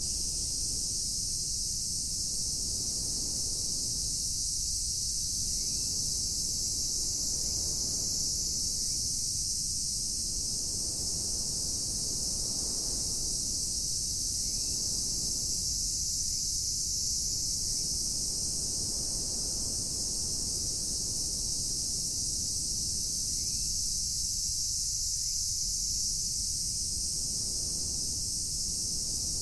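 A steady, high-pitched chorus of summer insects shrilling, with a low rumble underneath. A few faint short rising chirps come through it.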